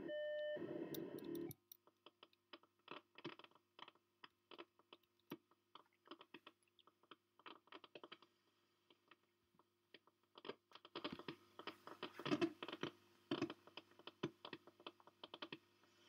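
Strange data-like signal from an old radio receiver: a buzzing burst with a few steady tones cuts off about a second and a half in, followed by irregular rapid clicks and ticks that grow denser near the end.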